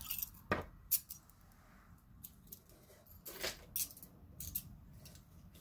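A few light clicks and taps of small metal costume jewelry being handled and set down on a wooden tabletop, scattered irregularly over a quiet background.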